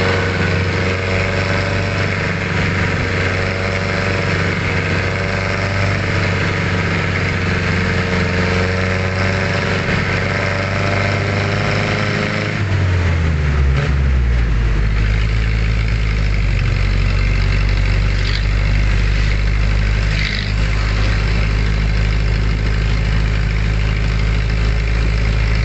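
Vehicle engine and road noise heard from inside a moving vehicle, steady throughout; about halfway through the engine note drops to a lower pitch and holds there.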